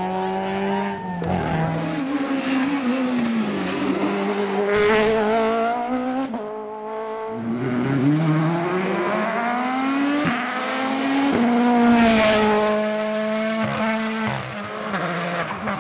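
Rally car engine revving hard. Its pitch climbs and then drops sharply several times, at each gear change.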